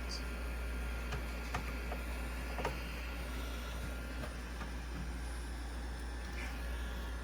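Steady low hum with a few faint, scattered clicks and taps.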